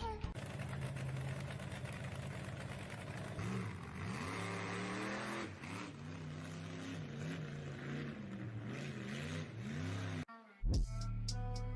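A car engine revving, its pitch rising and falling over and over, then a sudden cut near the end.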